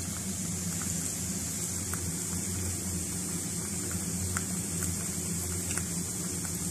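Besan-battered stuffed green chillies deep-frying in hot oil in a frying pan: a steady sizzle with scattered small pops and crackles, over a low steady hum.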